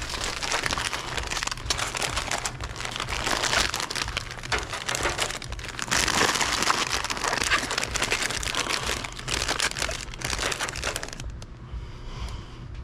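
Foil snack-chip bags crinkling and rustling as they are handled and packed in, over a steady low hum. The crinkling dies down near the end.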